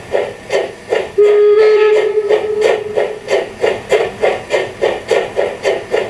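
Steam-locomotive sound of a KISS garden-railway model of the Harz Brocken locomotive (HSB class 99.23), with exhaust chuffs quickening from about two to three beats a second. A steam whistle sounds for about two seconds, starting about a second in, over the chuffing.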